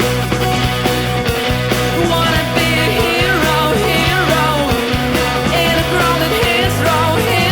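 Background rock music with a steady bass line and a singing voice coming in a few seconds in.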